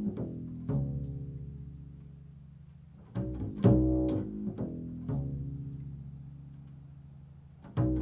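Improvised music of low plucked string notes, each struck and left to ring and slowly fade, with a new group of notes about three seconds in and again near the end.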